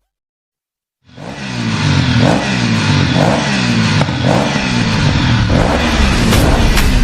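About a second of silence, then an instrumental ringtone track fades in: a deep bass line that glides up and down in a repeating pattern over a steady beat, with sharp ticks added near the end.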